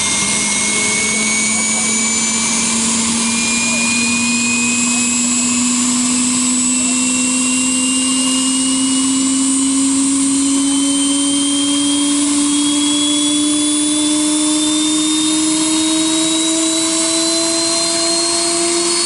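Cessna Citation Sovereign's Pratt & Whitney Canada PW306C turbofan spooling up during engine start, with a steady rush of air. A low hum and a high whine climb slowly and evenly in pitch as the engine gathers speed.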